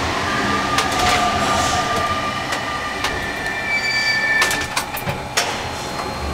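Rubber-tyred Paris Métro Line 1 train running as it pulls out of a station into the tunnel, heard from inside the driver's cab: steady running noise with thin, high squealing tones, and a cluster of sharp clacks about four and a half to five and a half seconds in.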